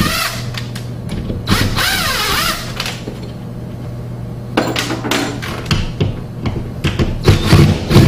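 Cordless drill whirring in two short bursts as it backs out screws, the pitch wavering under load. It is followed by a run of clicks and knocks from tools and metal fittings being handled.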